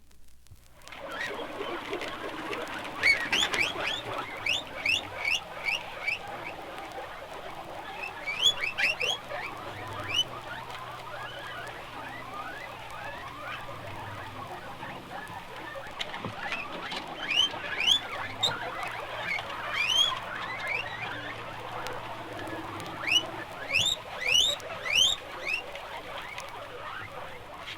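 Many animals calling at once: a dense steady chatter with runs of high, quick squeaky chirps coming in clusters, from a sound-effects record.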